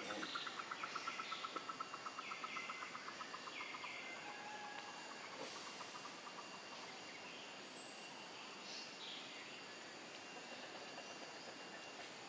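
Outdoor ambience: an insect's rapid pulsing trill that fades out about four seconds in, a few short chirps, and a steady faint hiss of background noise.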